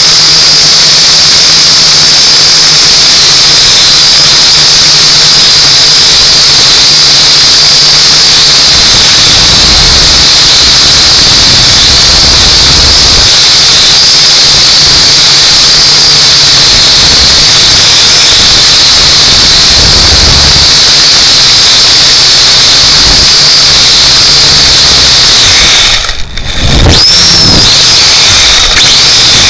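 Udi U818A quadcopter's motors and propellers whining, heard very loud and close through its onboard camera's microphone: a steady high whine over a hissing rush. Near the end the sound drops away for a moment and then rises again as the motors spin back up.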